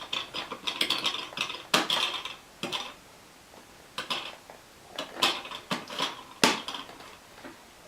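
Irregular clatter of hard objects knocking and rattling, a few sharp knocks at a time, the loudest about six and a half seconds in.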